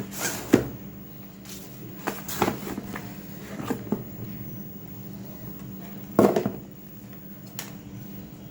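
Scattered knocks and clatter from objects being handled, the loudest about six seconds in, over a steady low hum.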